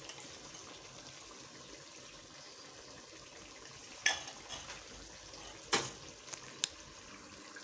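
Somali halwa bubbling in a pot on the stove: a faint, steady sizzling hiss, with a few sharp clicks about four and six seconds in.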